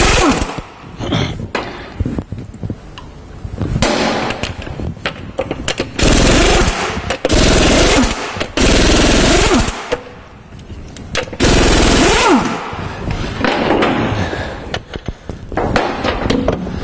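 Air impact wrench hammering the wheel nuts loose on a Range Rover L322 front wheel, in several loud bursts of about a second each, mostly bunched in the middle. The air motor's pitch rises and falls as the trigger is pulled and released, with quieter clicks and rattles between bursts.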